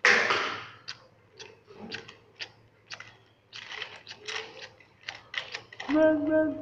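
A short breathy puff, then a string of irregular light clicks and taps. Near the end a voice starts, holding one long sung-out note that wavers at its end.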